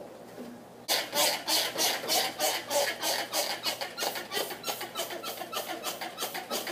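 Lil Chizler scraper being worked back and forth over a greasy grill, a quick rasping scrape about three strokes a second, starting about a second in.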